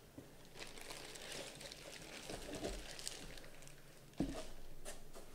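Clear plastic bags around a pair of cowboy boots rustling and crinkling as the boots are lifted out of a cardboard box and stood on a stone countertop, with a knock about four seconds in.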